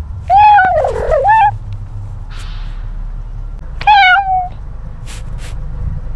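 Cat meowing twice close to the microphone: a long meow that dips in pitch and rises again, then a shorter falling meow about four seconds in, over a steady low rumble of wind and movement.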